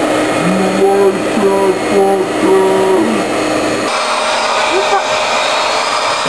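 Vacuum cleaner running steadily as its hose sucks Japanese beetles off a window sill; the pitch of the suction noise shifts a little just before four seconds in.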